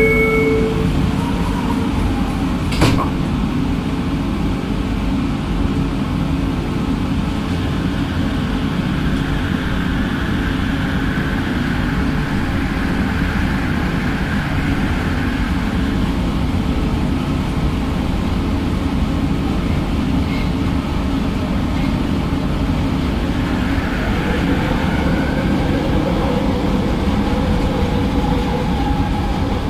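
Cabin noise inside a driverless Kelana Jaya Line LRT train: a single door thud about three seconds in, then a steady low rumble as the train pulls away and runs. A faint whine from the linear-motor drive swells and fades in the middle.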